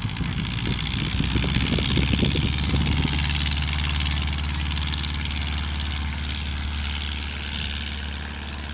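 Light propeller aircraft's piston engine running at high power with a steady low drone and propeller hiss, as for a takeoff run. Uneven low thumps ride over it for the first few seconds, and the sound slowly fades over the last few.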